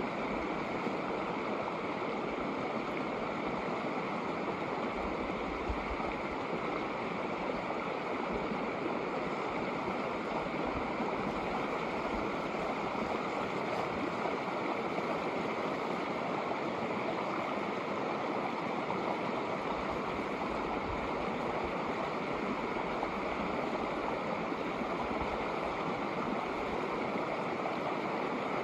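Shallow snowmelt creek running over rocks in small riffles: a steady, even rush of flowing water.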